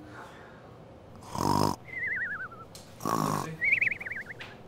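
Comic cartoon-style snoring, twice: each time a snorting in-breath followed by a warbling whistle that falls in pitch.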